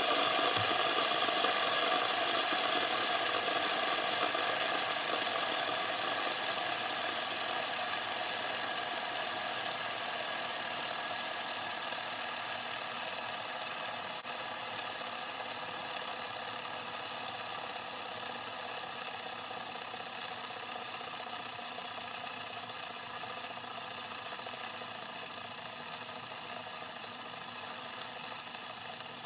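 Several metal fidget spinners spinning together on a tabletop, their bearings making a steady whir that slowly fades as they spin down.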